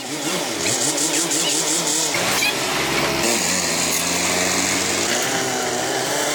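Power tools running in a repair workshop. The sound changes abruptly a couple of times, as if one job gives way to another.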